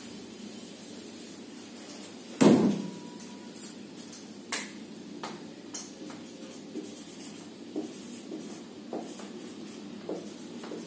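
A single loud knock about two and a half seconds in, then a few sharp clicks, then a felt-tip marker writing on a whiteboard in short separate strokes, over a steady faint hiss.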